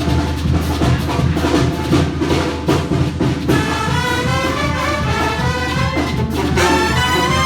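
Mexican banda music: drums and percussion over a steady low bass line, with the brass section coming in about halfway through to play the melody.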